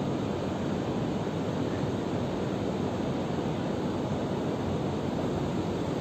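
Steady rushing wind mixed with a low hum of distant road traffic, even throughout, with no single passing vehicle standing out.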